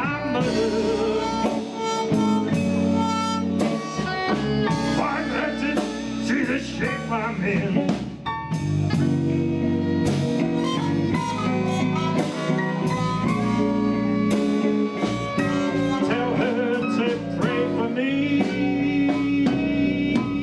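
A live blues band plays an instrumental passage between sung lines. Trumpet and trombone play held notes over hollow-body electric guitar and drums.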